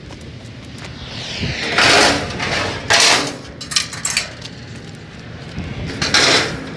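Car-hauler wheel-strap ratchet being worked to tighten a strap over a car's tyre: several short rasping bursts, the loudest about two and three seconds in and another near the end.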